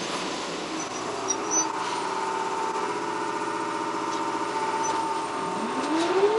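Jōmō Electric Railway 700-series electric train (ex-Keio 3000 series) running, with steady whining tones over a low rumble; from about five seconds in a tone climbs in pitch as the train picks up speed.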